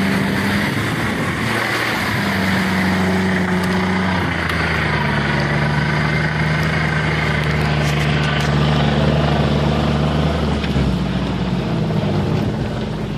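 Off-road 4x4's engine working under load on a rough dirt trail, heard from inside the cab. Its pitch steps up and down a few times as the revs change, over a steady rumble of driving noise.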